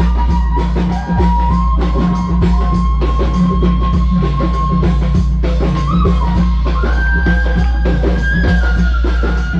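Transverse flute played live over drums and a heavy bass beat. The flute holds long notes with small bends and steps up to a higher note about seven seconds in.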